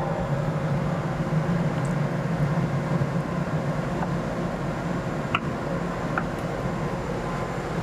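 Steady low machine hum, with a few faint clicks about four, five and six seconds in as a tapping unit is set into a turret punch press's tool station.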